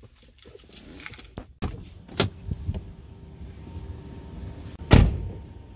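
Scattered clicks and knocks as a car door is opened and things are handled, then one heavy thump about five seconds in as the car door is shut.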